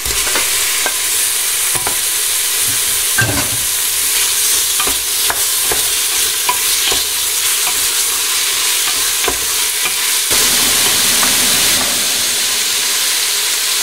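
Beef chunks sizzling as they brown in hot olive oil with onion and garlic in a stainless steel pressure cooker, a steady frying hiss, while a wooden spoon stirs them with scattered scrapes and knocks against the pot.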